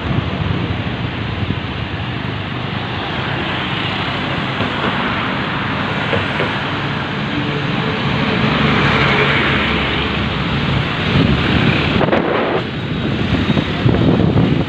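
Steady rush of wind on the microphone mixed with motorbike and road-traffic noise while riding, with a faint low engine hum underneath; it swells a little around the middle.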